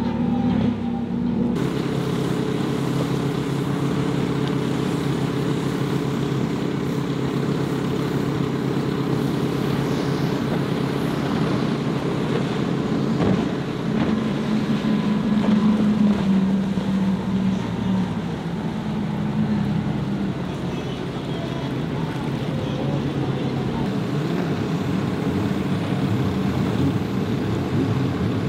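Speedboat engines running at high speed, a boat with a bank of outboard motors among them, giving a steady drone over the rush of hull and spray through the chop. A louder engine tone comes in about halfway through and falls away a few seconds later as a boat passes.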